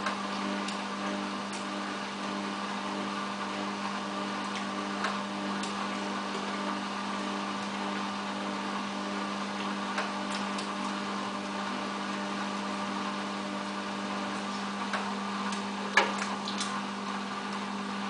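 Samsung WF8804RPA front-loading washing machine turning its drum at low spin speed, a steady motor hum and whine with a few light clicks and a sharper knock near the end. The machine is trying to balance an unbalanced load before the interim spin.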